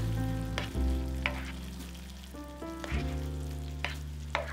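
Peppers, onion and tomato sauce sizzling in a nonstick frying pan while a spatula stirs them, with several short scrapes of the spatula against the pan. Soft background music with held chords plays underneath.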